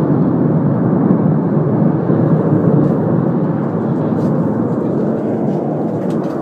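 Steady, continuous rushing noise of a large fire of escaping gas, heard from far off through an open window.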